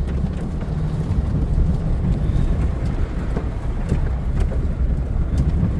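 Heavy one-ton (3500) pickup's engine running steadily under load as the truck bogs in soft mud, with scattered short knocks.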